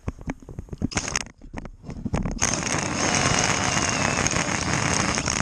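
A few knocks and clicks, then about two and a half seconds in a handheld ice auger driven by a Milwaukee M18 Fuel brushless cordless drill starts boring into lake ice, a steady grinding and crackling of the bit cutting ice.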